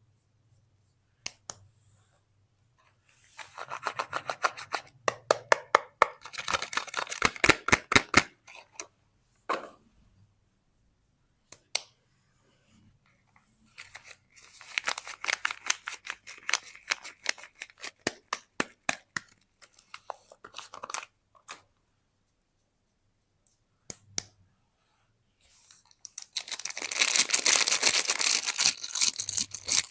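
Soap bars being unwrapped: wrappers crinkling and tearing, with sharp clicks and taps, in three bursts separated by quiet pauses, the last and loudest near the end.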